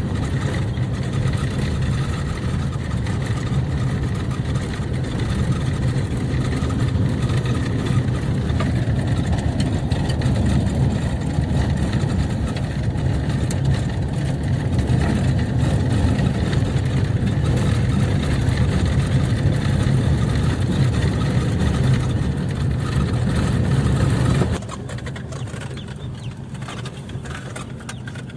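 Car driving on the road, heard from inside the cabin: a steady low rumble of engine and tyre noise. About 24 seconds in it drops suddenly to a much quieter hum.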